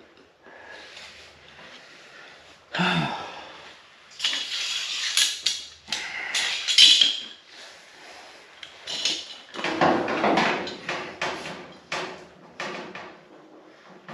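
Irregular scraping, rubbing and clattering of hand bodywork on a truck fender: tools and parts being handled and worked against metal in a small shop.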